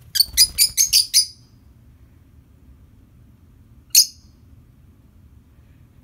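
Rosy-faced lovebird giving a quick run of about six loud, high chirps, then a single chirp about four seconds in.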